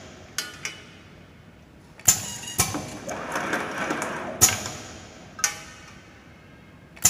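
Automatic wrap-around cable labeling machine cycling: several sharp metallic clacks from its air-driven clamp and wrapping head, with a busier stretch of mechanical clatter from about two to five seconds in.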